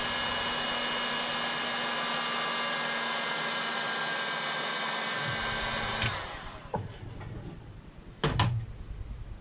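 Heat gun blowing steadily with a fan whine, shrinking heat-shrink tubing over the ferrite beads of a coax choke balun. It is switched off about six seconds in, and a click and then a knock follow.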